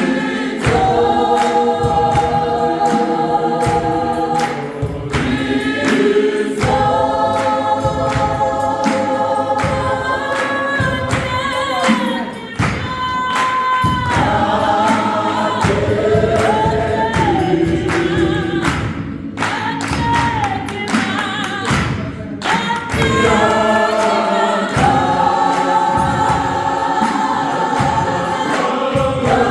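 South African gospel choir singing in several-part harmony, with held chords and gliding lines over a steady beat of sharp percussive knocks.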